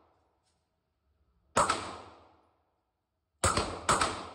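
Three 9mm pistol shots from a Canik Mete SFT PRO. One comes about a second and a half in, then two close together, about half a second apart, near the end. Each is a sharp crack that trails off.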